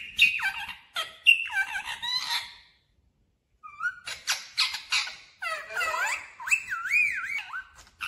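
Pet parakeet calling: a run of chattering squawks with quick pitch slides, a short break about three seconds in, then more calls ending in sliding whistled notes.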